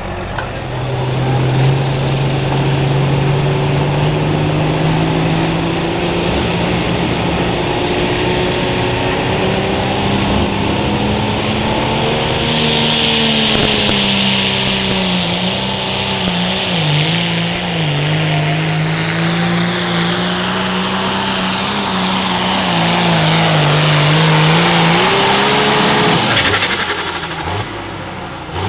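Turbocharged diesel limited pro stock pulling tractor running at full throttle, dragging the sled down the track. Its engine note holds steady, then wavers and dips again and again as the load builds, with a high whine climbing over it. About 26 seconds in the engine sound cuts off sharply and a high whine winds down.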